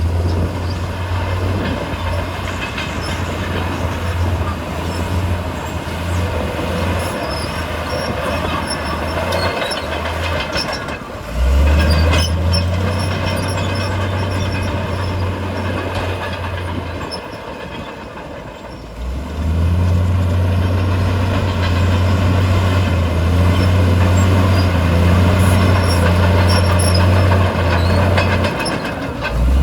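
Komatsu D68E crawler bulldozer's diesel engine working hard, with scattered metallic squeaks and clanks from the machine. The engine note drops back and then rises sharply under load twice, about a third of the way in and again about two thirds of the way in.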